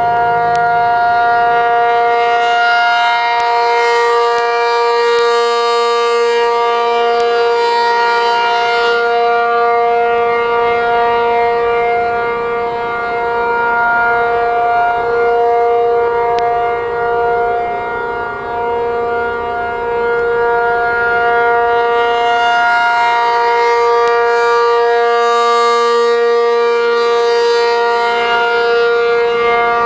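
ACA P-50 outdoor warning siren sounding a steady tone for a tornado warning test. The pitch holds level, and the sound swells and fades about every twenty seconds as the siren turns.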